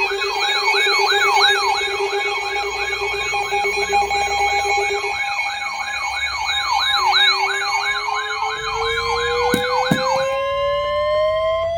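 Emergency siren yelping rapidly, about three rises and falls a second, over steady alert tones. A second siren tone starts partway through and slowly climbs in pitch, and the yelp cuts off about ten seconds in.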